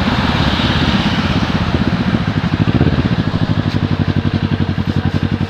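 Kawasaki ER-6n's parallel-twin engine running, its exhaust beat pulsing evenly and steadily.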